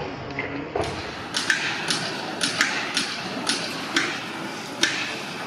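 A series of sharp taps or clicks, roughly two a second, starting about a second in, over steady background noise.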